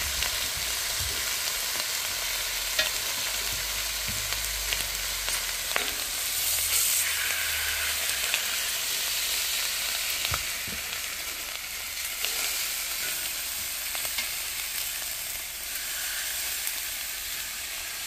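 Pork belly, sausages and shrimp sizzling on a flat steel griddle: a steady frying hiss, with a few sharp clicks of steel tongs against the griddle.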